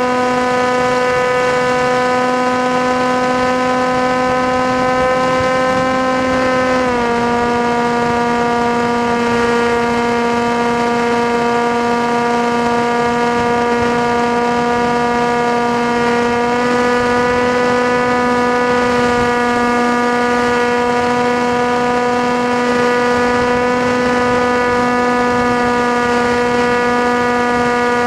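FPV model aircraft's motor and propeller running with a steady, loud whine; the pitch dips about seven seconds in and rises slightly again around sixteen seconds in as the throttle changes.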